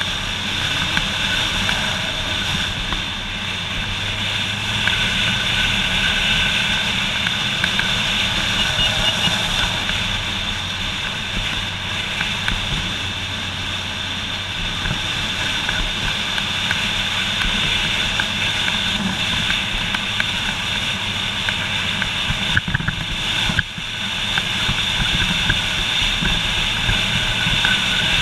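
Motorcycle engine running steadily at cruising speed, mixed with a steady rush of wind noise on the bike-mounted microphone. The sound dips briefly once, about three-quarters of the way through.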